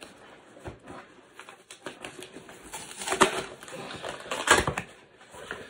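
Packaging being torn open and handled: a plastic postal mailer and the box inside it rustling, crinkling and clicking. Two louder tearing bursts come about three and four and a half seconds in.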